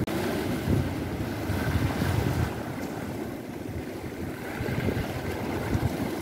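Wind buffeting the microphone in uneven gusts, over the wash of sea waves against jetty rocks.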